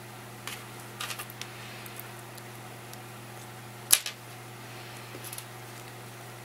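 Small clicks and taps of a watch strap and its tiny metal pins being handled on a wooden desk, with one sharp click about four seconds in, the loudest sound here. A steady low hum runs underneath.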